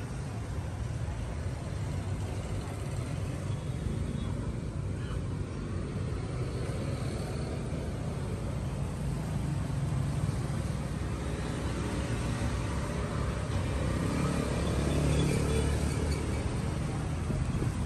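Steady low rumble of street traffic, swelling a little about three-quarters of the way through as a vehicle goes by.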